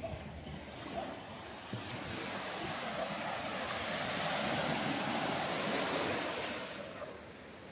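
Surf on a beach: a wave builds about two seconds in, washes up loudest for a couple of seconds, then fades near the end. A little wind rumbles on the microphone.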